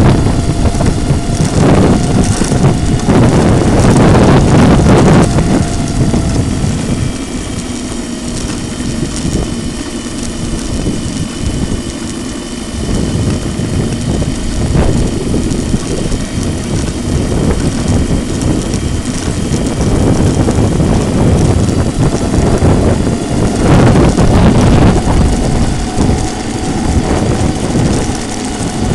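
Onboard sound of an 800 W electric scooter being ridden over brick paving: a loud, steady rumble of wind on the microphone and tyres on the pavers, with a thin whine heard at times. It swells louder at the start and again about three quarters of the way through.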